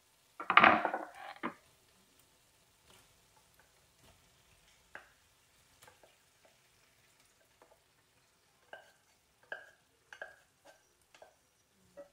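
Wooden spatula stirring paneer cubes in a nonstick frying pan, with scattered light knocks and scrapes from about five seconds on. A short, louder clatter comes about half a second in.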